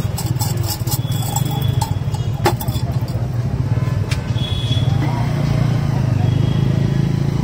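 Steady low engine rumble of road traffic, with an egg omelette sizzling in a cast-iron pan and a single sharp metal clink about two and a half seconds in.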